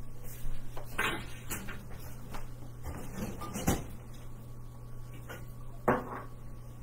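A few scattered knocks and clunks, the sharpest about a second in, near the middle and near the end, over a steady low hum.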